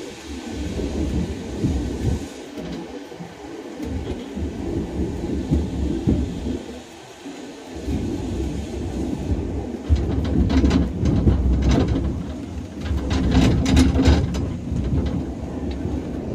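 Vintage tram running on its track: a low rumble that grows louder about ten seconds in, with a run of sharp clicks and rattles near the end.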